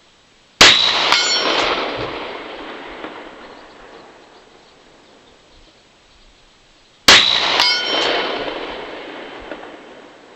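Two shots from a Smith & Wesson Model 686 .357 Magnum revolver, about six and a half seconds apart. Each shot is followed about half a second later by the faint clang of a steel gong 100 yards downrange, ringing with several tones. The gong's ring means each shot hit the target.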